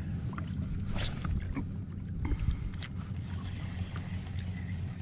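Steady low rumble of wind and water around a small skiff, with a few light clicks and knocks.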